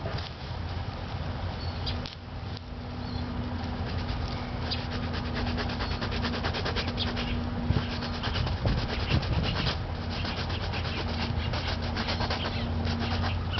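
Dry, dead prickly lettuce stalk being harvested by hand: continuous rustling and scraping of the brittle stalk and dried leaves, with a few sharper crackles partway through.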